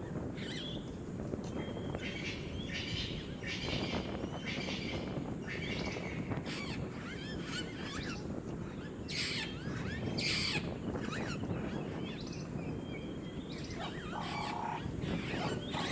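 Wild birds chirping and calling, many short sweeping notes one after another, over a steady low background rumble.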